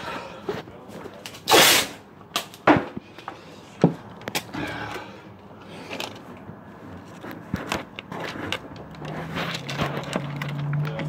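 Irregular knocks, bumps and rubbing from a phone being handled and moved about, with a short loud rasp about a second and a half in. A low steady hum comes in near the end.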